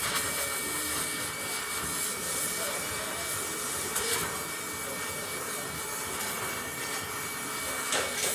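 Hand-held gas torch flame hissing steadily as it heats an aluminium alloy wheel rim to soften the metal before straightening.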